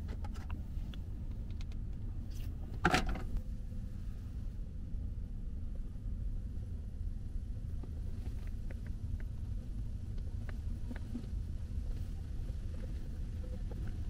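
Steady low rumble inside a car cabin, with one clunk about three seconds in and a few light clicks later, as stainless steel food trays are handled on a wooden table.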